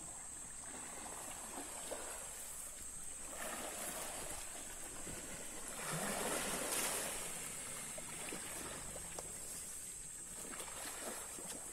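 Muddy pond water sloshing and churning as an American crocodile is dragged on ropes through the shallows, swelling twice, over a steady high-pitched whine.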